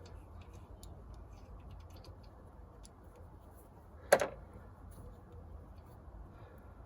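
Faint, irregular ticking of a socket ratchet undoing the 13 mm nuts that hold a Weber carburettor on its manifold, with one sharp metallic clink about four seconds in.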